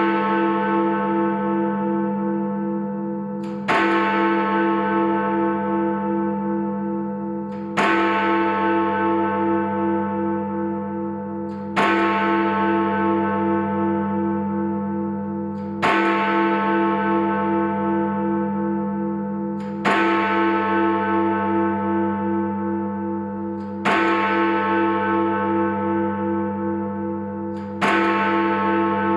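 Big Ben, the Great Bell in the Elizabeth Tower, striking the hour: single heavy strokes about every four seconds, seven in all, each ringing on with a long fading hum that throbs slightly until the next stroke.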